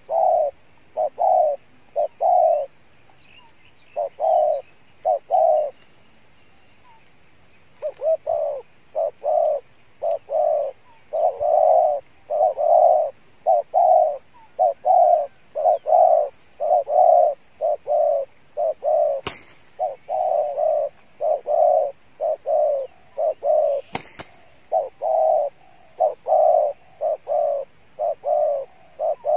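Spotted doves cooing in a long run of short, low notes, close to two a second, with a couple of brief pauses early on.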